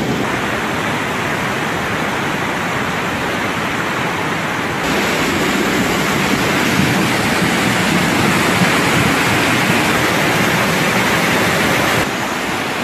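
A torrent of muddy floodwater rushing past, a dense, steady water noise. It steps up in level about five seconds in and drops back near the end.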